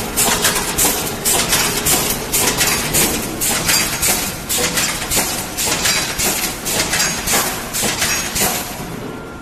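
Automatic wire mesh welding machine for poultry-cage mesh running, giving a rapid, regular metallic clanking of about two or three strokes a second that fades near the end.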